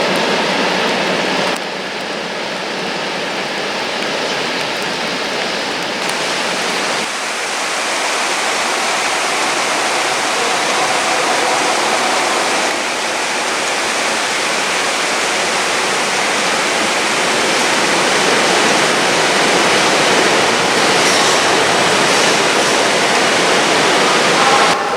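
Steady rushing hiss of heavy rain.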